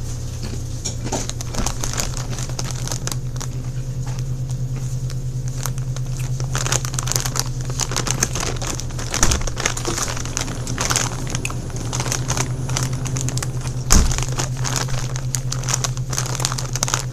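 Plastic chip bag crinkling and crackling as it is handled and shaken, densest in the second half, with a single thump about 14 s in. A steady low hum runs underneath, and quieter crunching of crunchy rolled tortilla chips being chewed comes through early on.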